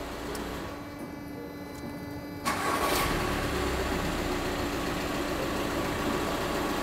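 2009 VW T5 van engine switched off, then started again about two and a half seconds in, with a single sharp knock as it catches, and left running steadily. It is being cycled from cold to bring out a knocking noise that the mechanics think may come from the dual-mass flywheel.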